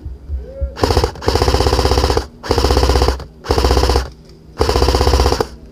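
Airsoft electric rifle (AEG) firing on full auto in four rapid bursts, the first the longest, each cut off sharply.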